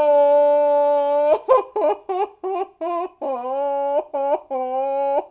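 A woman's voice muffled behind her hand over her mouth: one long held "ooh", then a quick string of short pitched "oh" sounds and two more held notes, a humming exclamation of shock.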